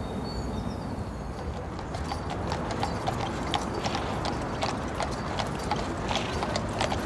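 Hooves of harnessed carriage horses clip-clopping on pavement: an uneven run of hoofbeats that starts about a second and a half in.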